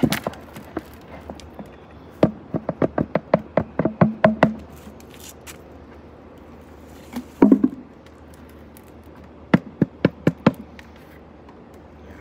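Knocks and taps on planter pots as soil is tipped from one pot into another: a quick run of about a dozen taps, a few a second, starting about two seconds in, then a few scattered knocks.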